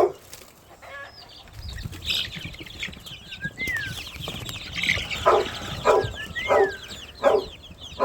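Chickens clucking, about five short clucks in the second half, over a steady stream of high, quick chirps and a couple of short whistled calls from other birds.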